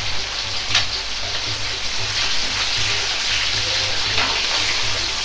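Chicken, eggplant and green pepper deep-frying in a wok of hot oil: a steady sizzling hiss of bubbling oil, with a sharper crackle about a second in.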